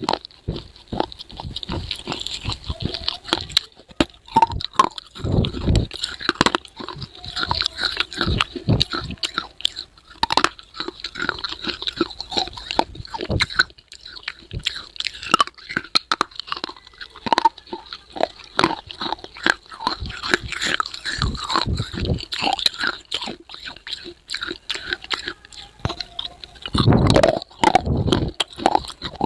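A person repeatedly biting and crunching brittle pieces of baked clay close to the microphone, with irregular sharp cracks and chewing throughout and heavier crunching bites about 5 seconds in and near the end.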